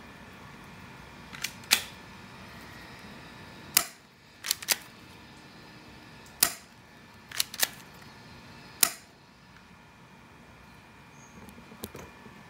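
A Hi-Capa 2011 airsoft pistol firing several sharp shots through a chronograph, some in quick pairs, spaced over about eight seconds. It is a velocity test with 0.20 g BBs, and the reading comes out at about 180 fps.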